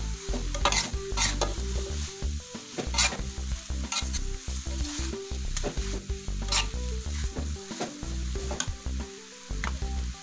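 Fried noodles sizzling in a metal wok as a metal spatula stirs and tosses them, scraping and knocking against the pan at irregular moments.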